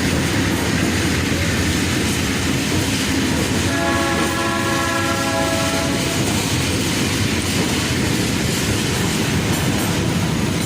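GE U20C diesel-electric locomotive running with a steady rumble and wheel clatter on the rails. It sounds its horn once, a chord held for a little over two seconds, just before the middle.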